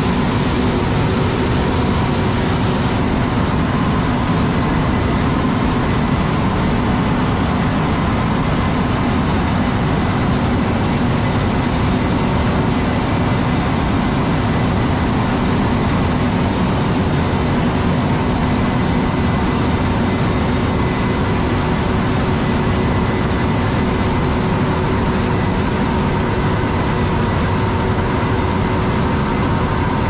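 Large harvest machinery running steadily: a constant, loud engine-and-machine drone with several steady whining tones and no change in pace.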